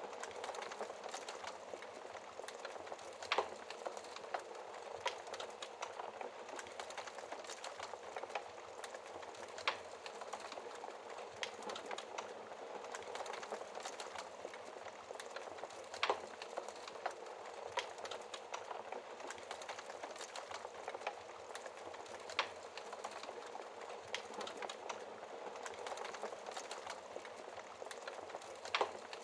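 Wood fire burning steadily with a constant crackling hiss and scattered sharp pops and snaps every few seconds.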